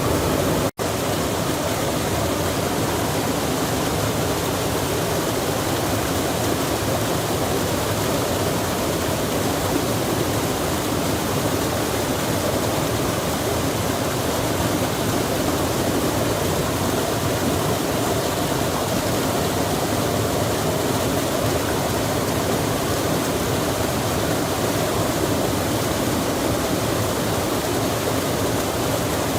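Steady rushing of a stream with rain falling, an even hiss of water that does not change; it cuts out for an instant less than a second in.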